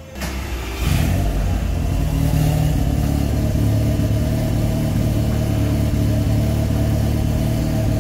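SEAT Leon Cupra R mk2's turbocharged 2.0-litre four-cylinder running at a steady idle through a freshly fitted custom valved cat-back exhaust with twin large tailpipes: a deep, even drone that comes in about a second in.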